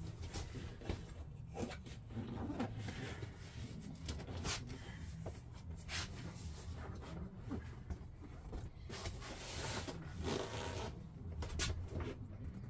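Hands working an upholstery cover over a golf cart seat: irregular rustling, scraping and light knocks as the cover is pulled and shifted on the seat base, with a steady low hum underneath.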